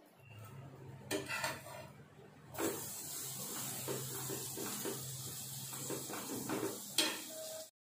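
Butter sizzling on a hot tawa as pav is pressed and moved about with a metal spoon, with a few clinks of the spoon against the pan. The sizzling starts about two and a half seconds in and holds steady until the sound cuts off just before the end.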